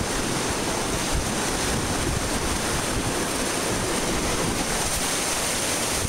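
Whitewater rapids churning around a raft: a steady rush of water with no break.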